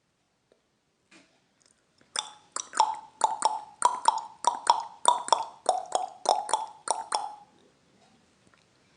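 An animal's rapid run of short, clipped calls, often in quick pairs and each dropping in pitch. It starts about two seconds in and lasts about five seconds.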